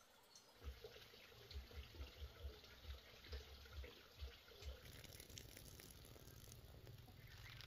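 Near silence: faint outdoor ambience, with irregular low thumps in the first half giving way to a steady low rumble.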